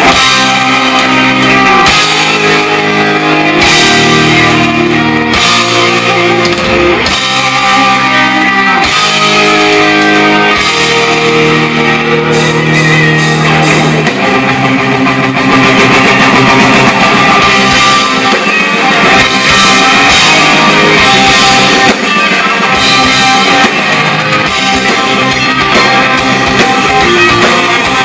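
Live rock band playing an instrumental passage: electric guitar chords held and changed every couple of seconds over bass and drums, with the band turning denser and fuller about halfway through.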